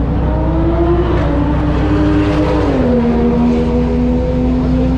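Race car engine running over a constant low rumble, its pitch climbing for about a second and a half, then dropping about three seconds in and holding steady.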